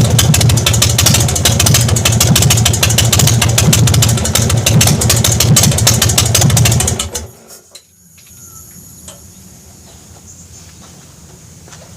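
Big Dog motorcycle's V-twin engine idling with a rapid, even pulse, then shut off about seven seconds in, leaving a low background with a few faint ticks. It is running with its tappet screen freshly cleaned and refitted.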